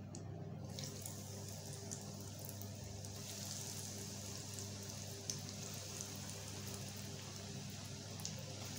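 Breadcrumb-coated vegetable cutlets sizzling and crackling in hot oil in a frying pan. The sizzle starts about a second in, as the first cutlets go into the oil, and then holds steady.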